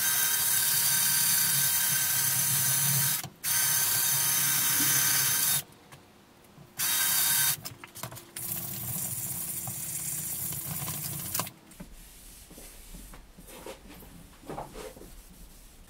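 Electric drill with an 80-grit sanding wheel grinding rust off a stainless steel motorcycle exhaust header. It runs in bursts of a few seconds with short stops, has a softer run after the middle, then stops well before the end.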